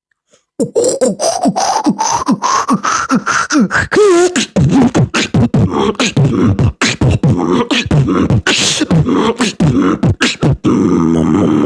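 Beatboxing: a fast, continuous run of vocal percussion strokes starting about half a second in, with a pitched tone sliding steadily upward over the first few seconds and a wavering tone around four seconds in.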